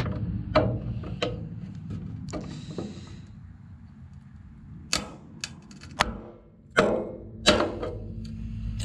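Water-pump pliers clicking and scraping on a sheared brass fuel fitting in a steel fuel tank as they grip it and try to turn it out: a scattered series of sharp metal clicks.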